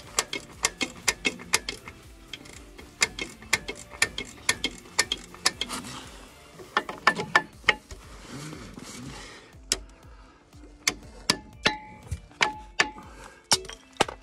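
Hand ratchet clicking rapidly, about four clicks a second, as it winds back the adjuster of a Scania truck's air disc brake caliper to retract it. The clicks stop about six seconds in, then return more spaced out near the end.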